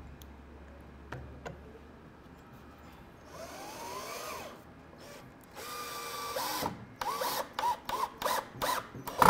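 Power drill driving screws into wood: a short whir that rises and falls in pitch, a second steadier run, then a series of short trigger bursts, growing louder near the end as the screw is driven home.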